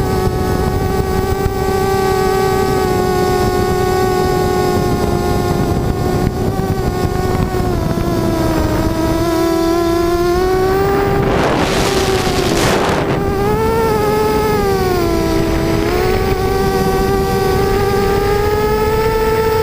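Quadcopter's brushless motors and propellers whining at a steady pitch that dips and rises as the throttle changes, over rough wind noise on the microphone. About eleven seconds in comes a brief loud whoosh.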